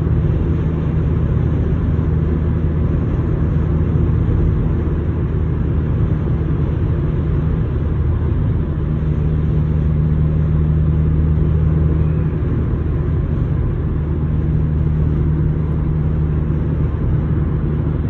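Steady low drone of a car driving on a highway, with road and engine noise heard inside the cabin.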